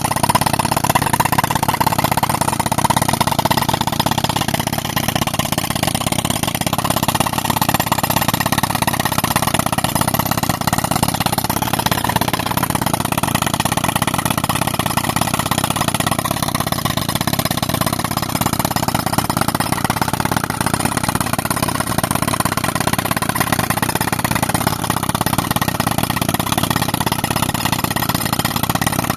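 Tractor engine running steadily, driving an air compressor.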